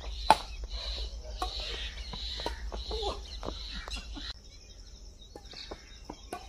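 Badminton racket strikes on a shuttlecock during a rally: sharp hits about once a second, the loudest about a third of a second in. Birds call steadily in the background until about four seconds in.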